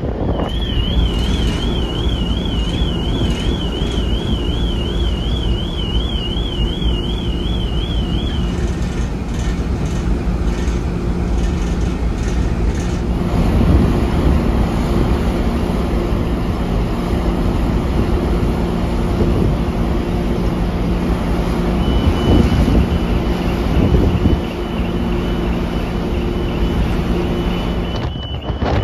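Strong wind buffeting the microphone on a ferry's open deck, over the steady low hum of the ship's machinery. A high warbling electronic tone sounds for about the first eight seconds, and a steady high tone comes in near the end.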